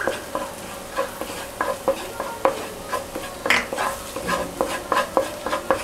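A spatula stirring and scraping flour into melted butter in a non-stick pan, in short irregular strokes about two a second, over a light sizzle: a butter-and-flour roux cooking as the base of a white sauce.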